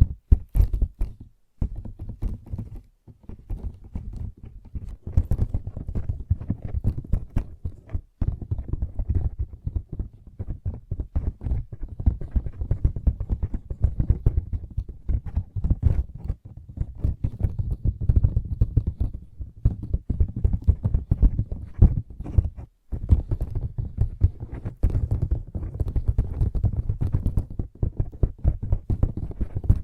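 Rapid fingertip tapping and scratching with the pads of the fingers: a dense run of dull, low taps and rubs, broken by a few brief pauses.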